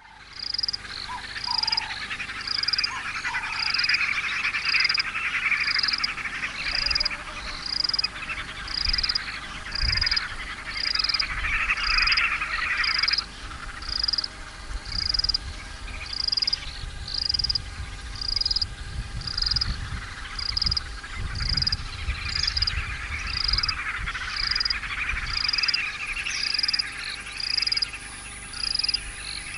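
Frogs calling at a waterhole. A short, high note repeats about once a second over a denser chorus, which stops abruptly about 13 seconds in and returns later. A faint low rumble runs through the middle stretch.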